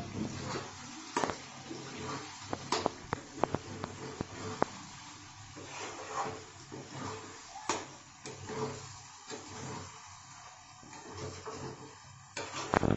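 A pot of chicken and masala cooking over a gas flame with a low steady hiss, while a spoon scrapes and clinks against the pot several times, most often in the first few seconds.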